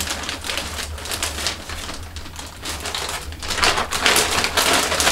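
Rustling and crinkling of a small package or bag being handled and opened, irregular and louder in the second half.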